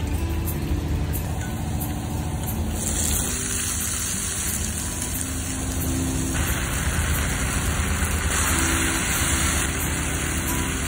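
Diced tomatoes frying in oil in a pan, a steady sizzle that grows louder about three and six seconds in, over a low steady rumble.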